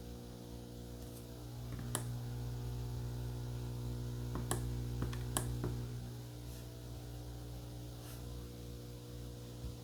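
Steady electrical hum with a buzzy stack of overtones coming from a portable radio's earphone output with no programme playing: unwanted noise on the headphone jack. The hum swells a little from about two seconds in to about six seconds in, and a few sharp clicks sound around two, four and a half and five and a half seconds in.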